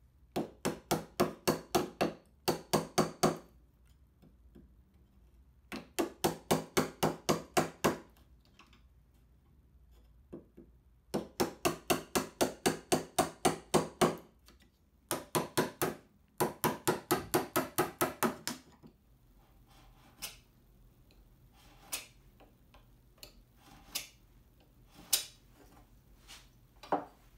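A small hammer tapping a narrow steel chisel into the wood, in quick runs of about five light strikes a second with short pauses between, squaring out the corner of a notch in Douglas fir. Near the end only a few separate light clicks.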